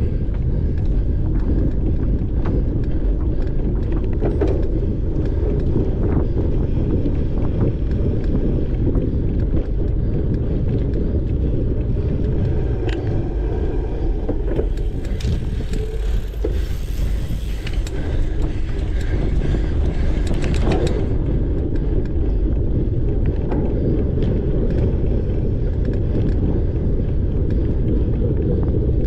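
Wind buffeting a bike-mounted microphone and knobby cyclocross tyres rumbling over a dirt track at race speed, with scattered clicks and rattles from the bike.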